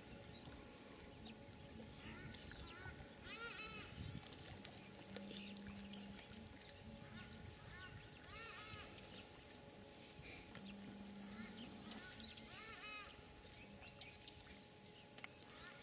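Quiet dry-woodland ambience: a steady high insect drone with a bird calling three times, each call a quick run of rising-and-falling chirps, among scattered other bird notes. A faint low hum comes and goes twice.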